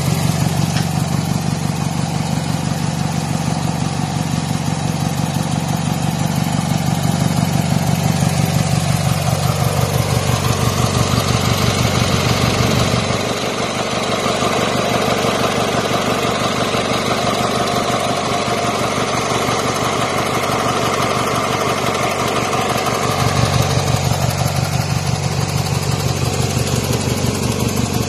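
Briggs & Stratton 12.5 hp Twin II cast-iron-bore twin-cylinder engine of a Ford YT 12.5 garden tractor, running steadily with an even, regular beat.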